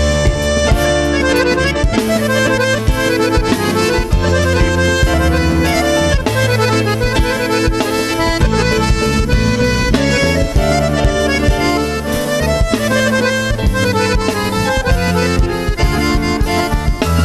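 Live band playing an instrumental break with no vocals: drums keep a steady beat while keyboards and electric guitar carry the melody.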